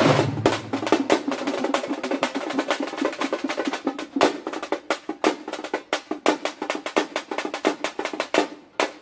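A troupe of thamate frame drums beaten with sticks in a fast, dense rhythm of many sharp strokes a second, thinning briefly just before the end.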